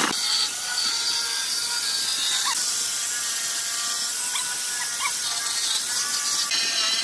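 Electric jigsaw sawing through a wooden board with a steady high-pitched buzz; the sound shifts slightly near the end.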